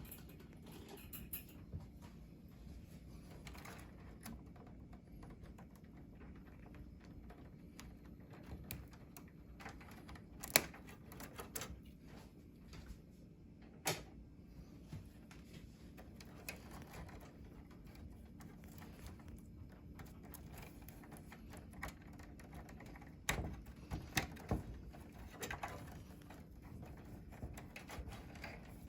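Scattered clicks and light knocks of computer hardware being handled while a graphics card is fitted, with a faint low hum underneath. The sharpest clicks come about ten and fourteen seconds in, and a cluster comes near the end.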